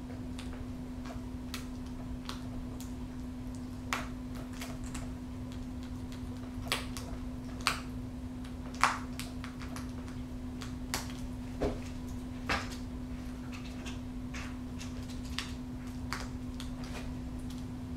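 Peregrine falcon feeding on a quail carcass: scattered sharp clicks and snaps as its beak tears at the meat and bone, the loudest about nine seconds in, over a steady low hum.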